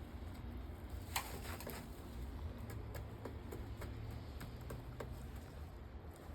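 Scattered light taps and ticks at irregular intervals, the sharpest about a second in, over a low steady rumble.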